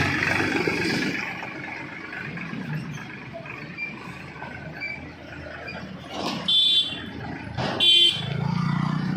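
A vehicle horn gives two short toots about a second and a half apart, over the engines of a backhoe loader and tractor at work.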